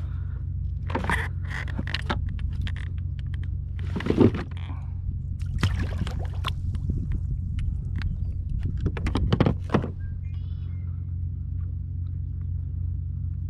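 Splashing and rustling as a rope is hauled in by hand from the water beside a kayak, with gear knocking on the hull in several short bursts, the loudest about four seconds in and again near the end. A steady low rumble runs underneath.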